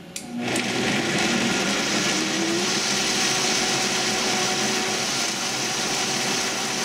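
Vitamix Professional Series 750 blender starting its pre-programmed soup cycle: a click or two as it is switched on, then the motor comes up to speed within about half a second and runs loud and steady, blending the soup.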